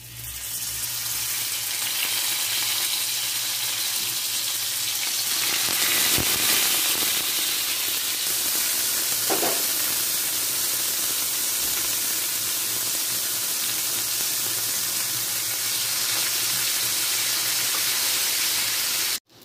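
Leaf-wrapped dry-shrimp bora sizzling as they shallow-fry in hot oil on a medium flame. The sizzle starts suddenly as the first parcel goes into the oil, runs steadily, and cuts off abruptly just before the end.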